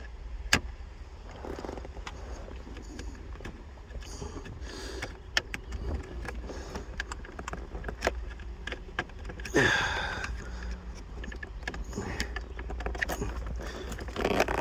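Small plastic clicks and scraping from prying the shifter trim clips with a pick, with a sharp click about half a second in and a louder rustle of handling near the middle, over a steady low hum.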